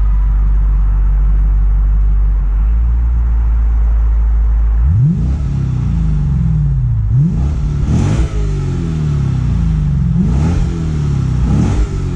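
2009 Lexus IS F's naturally aspirated 5.0-litre V8 idling through its quad exhaust, then revved in several short throttle blips from about five seconds in, each rev rising sharply and falling back to idle.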